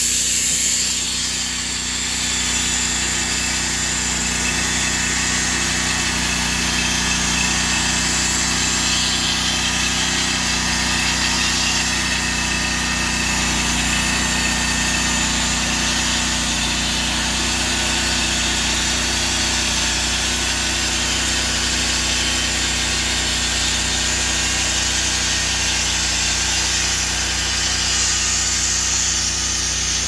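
Norwood portable band sawmill running steadily, its engine holding a constant speed as the band blade is pushed through a log.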